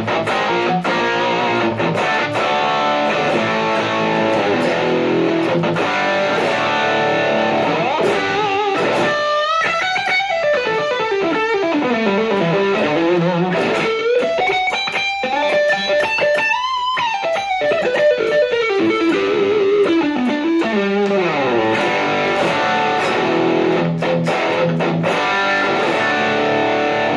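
Electric guitar played through a Tank-G amp modeller using a captured tone of the Dream with a JHS Angry Charlie distortion pedal, with a little reverb. Chords give way to a single-note lead line with bends and slides about eight seconds in, and chords return near the end.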